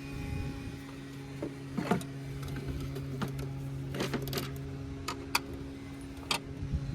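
Sharp plastic clicks and snaps of battery hold-down clamps and clips being pried and popped off in a car's engine bay: one about two seconds in, a cluster around four seconds, and single ones later. Underneath is a steady low mechanical hum that stops near the end.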